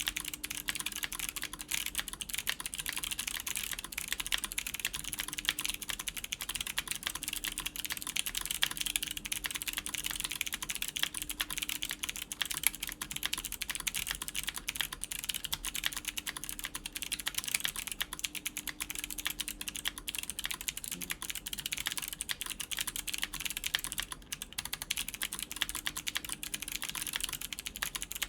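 Continuous fast typing on a top-mounted mechanical keyboard with clicky Kailh Box White v2 switches, an aluminum plate and GMK keycaps: a dense, uneven stream of keystroke clicks that eases slightly for a moment near the end.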